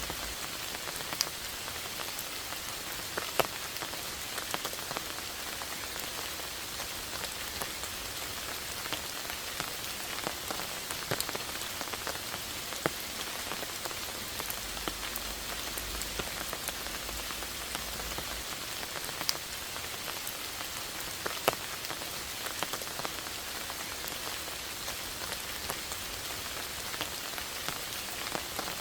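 Steady rainfall: an even patter of rain with scattered louder individual drops landing close by.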